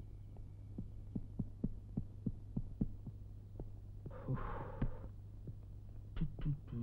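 Soft, regular thumps, about three a second, over a steady low hum. About four seconds in there is a brief rustling thud as a suitcase is swung and handled.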